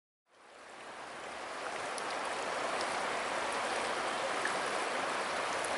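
Shallow river rapids rushing over and around rocks: a steady noise of running water that fades in from silence just after the start and reaches full level over about two seconds.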